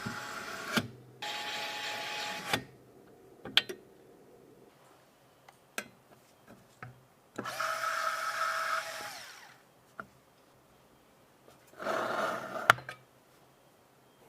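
Small electric tool motor, an electric screwdriver or drill, whirring in four short bursts, with sharp clicks and knocks of parts being handled in between.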